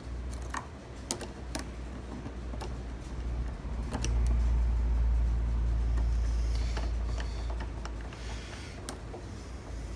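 Scattered small metal clicks and scraping as tools work inside a jammed gumball machine lock with a spring in the way, with a low rumble from about four to seven seconds in.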